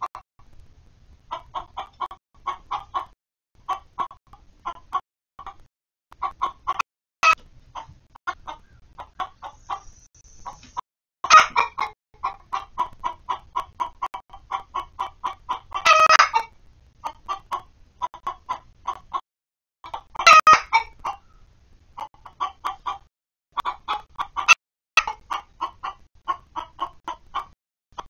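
Backyard hens clucking in long runs of short, quick clucks, broken by about three louder, longer calls in the middle.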